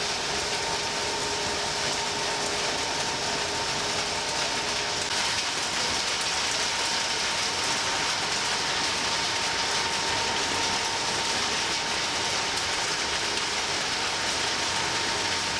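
Industrial shredding and briquetting machinery running steadily: an even mechanical hiss with a constant thin whine.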